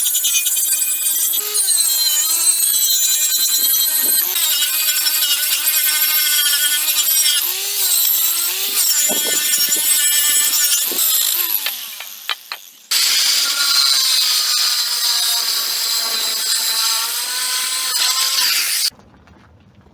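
Electric disc power tool, like an angle grinder, grinding or cutting steel. Its motor whine dips in pitch as the disc bites. It winds down about twelve seconds in, starts again a second later and stops abruptly near the end.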